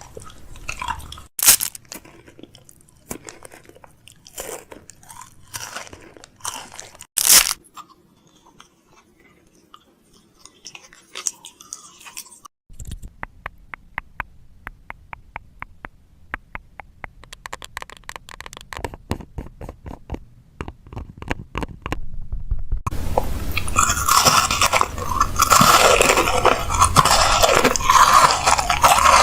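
Food packaging and plastic containers being handled while a fridge is restocked: scattered clicks and knocks, then a run of fast, evenly spaced ticks about midway. A dense, loud rustling sets in about six seconds before the end.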